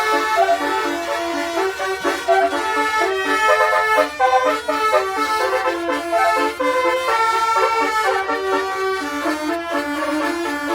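A bus's Basuri multi-tone 'telolet' musical horn playing a continuous tune of reedy, accordion-like tones, the notes changing several times a second.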